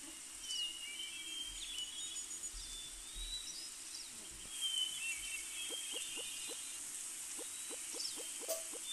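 Wild birds chirping and whistling in short gliding calls over a steady hiss, like a nature ambience track. From about halfway a quick regular run of short low sounds starts, about three a second.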